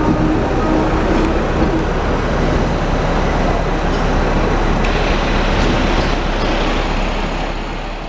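Steady running noise of a Hong Kong double-decker tram and the street traffic around it: a constant rumble and hiss that starts to fade out near the end.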